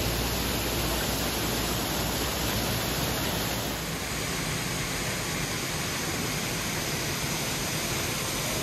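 Steady rushing and splashing of a small waterfall pouring over rock into a pool, with a slight shift in its tone about four seconds in.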